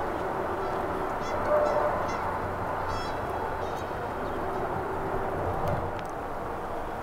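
Canada geese honking: a few short honks, the loudest about one and a half seconds in, and a few more about three seconds in.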